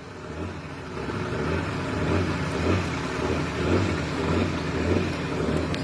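Motor vehicle engine running with a low throb that swells about once a second, under a steady rushing noise; the level builds over the first couple of seconds.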